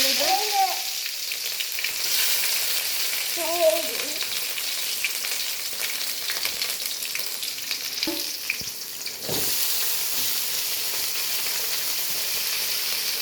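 Whole spices, fennel seeds among them, sizzling in hot oil in a pan while a spatula stirs them. There is a knock about nine seconds in, and the sizzle gets a little louder after it.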